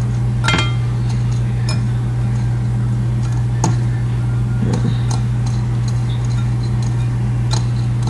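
A few light clinks against a bowl as a breaded cheese stick is dipped in egg wash and handled, over a steady low hum.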